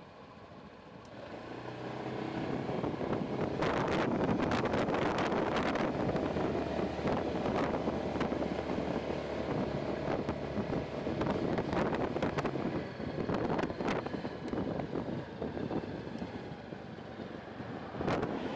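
Honda PCX scooter's single-cylinder engine pulling away from a stop about a second in and picking up speed, then running steadily with road noise, while wind buffets the microphone throughout the ride.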